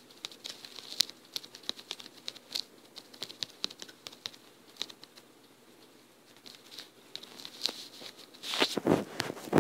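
Fingertips tapping out a message on a phone's touchscreen keyboard: quick, irregular light taps. A louder, longer noisy burst comes near the end.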